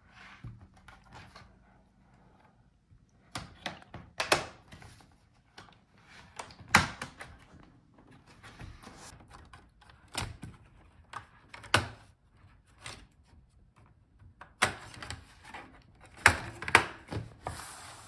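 Plastic retaining clips of a laptop's bottom case snapping loose one after another as a pry tool works along the seam: about ten sharp snaps at irregular intervals, the loudest about seven seconds in, with faint handling noise between.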